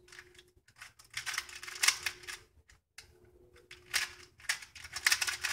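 A 2x2 speed cube being turned by hand, its plastic layers clicking and clacking in two quick runs of turns, about a second in and again from near four seconds on.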